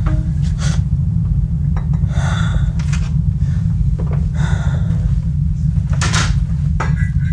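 A steady low rumble throughout, with scattered short knocks and rustling noises over it.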